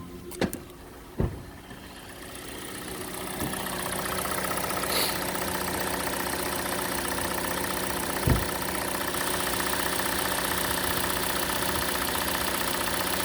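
Hyundai/Kia G4NA 2.0-litre four-cylinder engine idling while still warming up, at about 50 degrees coolant, with a fast, even ticking from the top end that the owner suspects is the hydraulic lifters. It grows louder over the first few seconds, with a couple of short knocks near the start and a single thump about eight seconds in.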